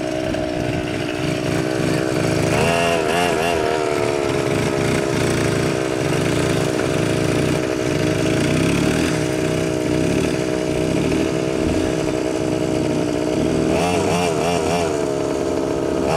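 ATV (quad bike) engine running under throttle as it is ridden over rough grass. Twice, about three seconds in and again near the end, the engine note wavers rapidly up and down.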